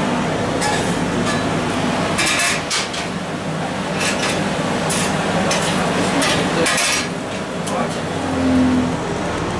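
Steady rush of a forge fire under its air blast, with irregular metallic clinks and scrapes as the stainless steel bar and fire tools are shifted in the fire.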